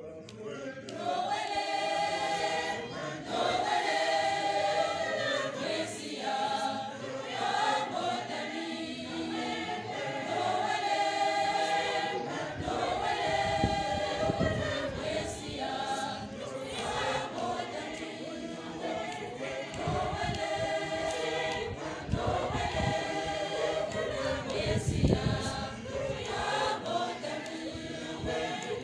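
A large choir of school students, girls' and boys' voices together, singing a gospel song in Lingala. The singing starts about a second in and goes on in held phrases.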